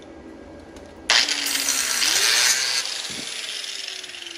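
Angle grinder with a DeWalt abrasive disc grinding the edge of a welded 14-gauge steel cube: a loud grinding hiss starts suddenly about a second in and is strongest for nearly two seconds. It then eases off while a falling whine is heard.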